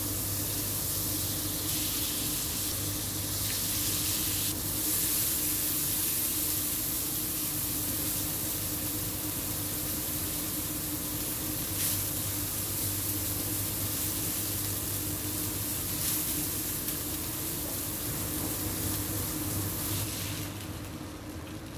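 Butter with chopped onion, garlic and ginger sizzling steadily in a nonstick frying pan as a silicone spatula stirs them. Near the end the sizzle dies away as the sauce liquid is poured in.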